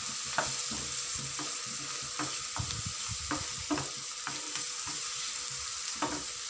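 Chopped onion, green chilli and ginger-garlic paste sizzling steadily in hot oil in a frying pan, with a wooden spoon stirring and scraping against the pan about twice a second. The paste is being fried until its raw smell is gone.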